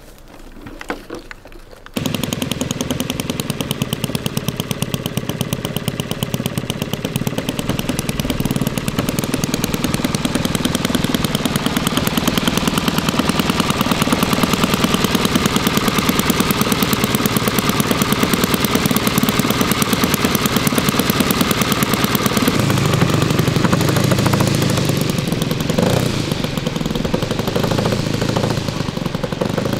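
Combustion engine of a large radio-controlled F4U Corsair model running on the ground with its propeller turning, a fast, even firing. It gets louder and deeper for a few seconds about three-quarters of the way through as the throttle is opened.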